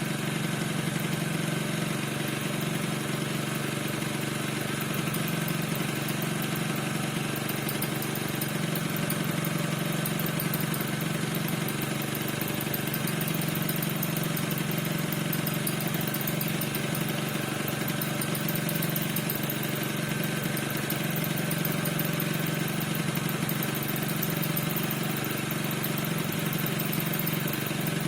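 Piaggio NRG 50 scooter's 50 cc two-stroke engine idling steadily, with the squeak whose cause the owner cannot find.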